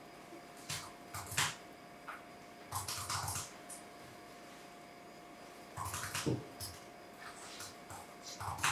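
A few short scrapes and knocks from a small saucepan being tipped and scraped as warm cream is poured over white chocolate chips in a glass bowl. A faint steady hum runs underneath.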